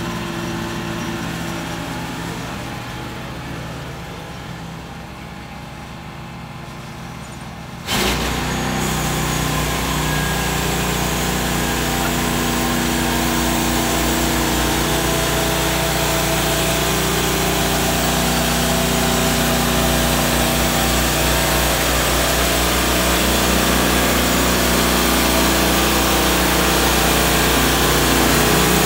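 Woodland Mills HM130 bandsaw mill's petrol engine running at idle, then about eight seconds in it jumps suddenly to full revs and stays there. The band blade is driven through a softwood log as the saw head advances along the track.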